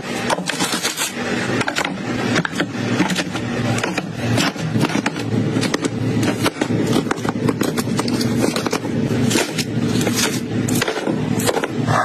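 Plastic clattering and tapping as food pouches and packages are set into clear plastic refrigerator bins, a quick run of sharp clicks and knocks, over a steady low hum.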